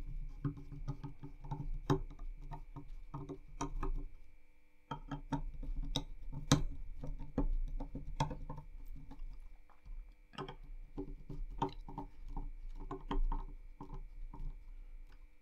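Screwdriver tightening the mounting screws of a Noctua NH-L9a-AM4 CPU cooler, working from one screw to the other: a run of irregular small clicks and taps, with a short lull about four seconds in.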